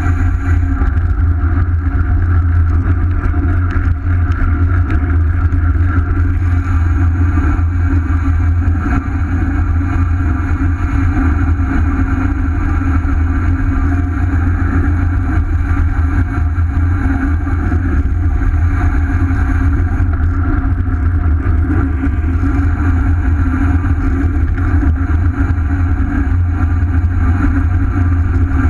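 Steady wind rush buffeting a camera microphone, with road noise, while riding at speed along the open road; a heavy low rumble that never lets up.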